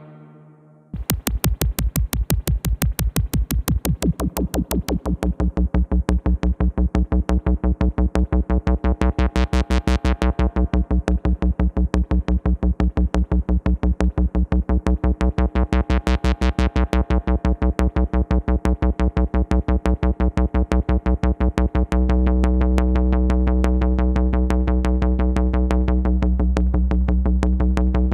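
Korg ARP 2600 FS synthesizer playing a fast, evenly repeating pulse of notes, about five a second, with its filter swept open and closed twice so the tone brightens and darkens. About three-quarters of the way in, a sustained deep bass tone joins the pulse.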